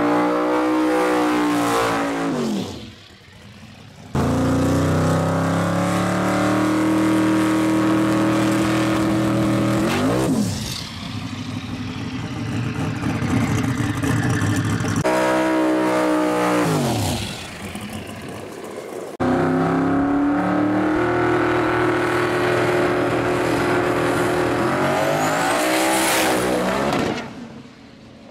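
Turbocharged Ford Falcon drag car's engine revving hard in a burnout and on launches. Each stretch of high, steady revs ends in a sharp drop in pitch as the car passes and pulls away, four times in all, with abrupt jumps between separate takes.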